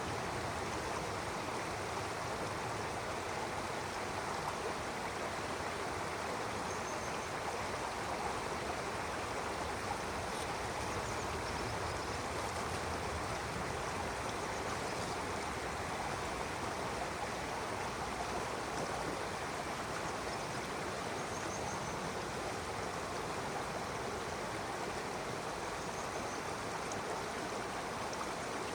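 Stream water running and splashing over rocks in a steady, even rush. A few faint, short bird chirps sound above it now and then.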